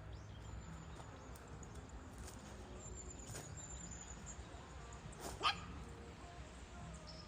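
A dog gives a single short, sharp bark or yip about five and a half seconds in, over a low steady background.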